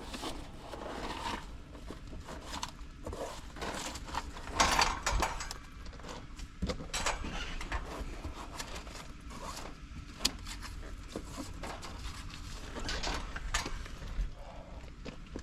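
Irregular rustling, scraping and light clicks of hands and tools handling an outdoor air-conditioning condenser unit, with a louder scrape about four and a half seconds in.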